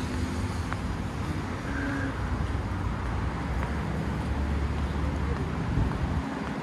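Steady outdoor rumble of wind buffeting the phone's microphone, over a wash of road traffic.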